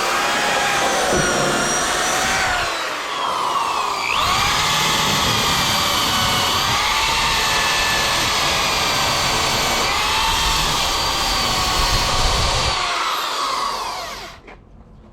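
Power tool spinning a wire wheel against seam sealer on sheet steel: a steady motor whine with a scrubbing noise, its pitch wavering as the wheel is pressed on. The tool eases off briefly and spins back up a few seconds in, then winds down near the end.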